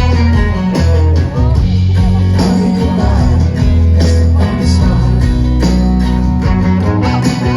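Live band music with guitar, a steady bass line and a regular beat, with singing over it.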